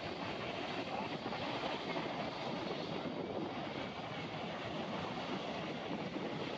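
Steady wash of ocean surf breaking against jetty rocks, mixed with wind on the microphone.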